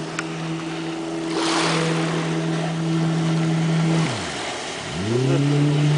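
40 hp Mercury outboard motor pushing an inflatable boat at a steady speed, with water rushing past. About four seconds in the throttle is briefly cut, the engine note falling away, then it is opened again and climbs back to speed.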